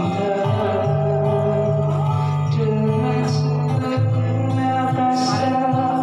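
A person singing a melodious song over musical accompaniment, with long held notes.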